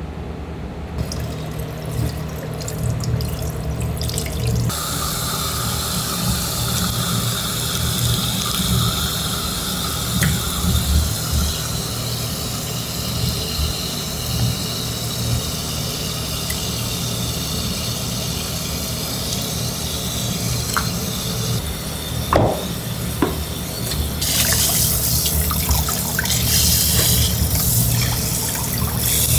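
Tap water running into a stainless steel bowl in a sink, splashing as pufferfish pieces are rubbed and rinsed by hand, much louder in the last few seconds. A steady low hum runs underneath, with one sharp knock about three-quarters of the way through.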